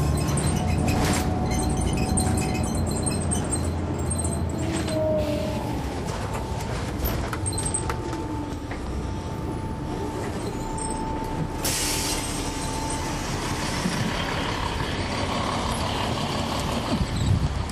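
On-board sound of a 2004 Neoplan AN459 articulated bus with a Caterpillar C-9 ACERT diesel engine running steadily, with a thin whine that comes and goes. A sudden hiss about twelve seconds in.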